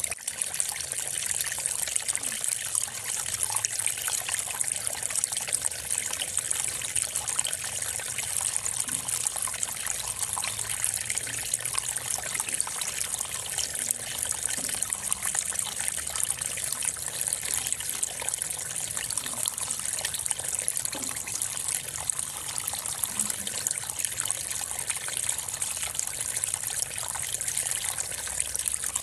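A steady trickling, water-like hiss, even and unbroken throughout.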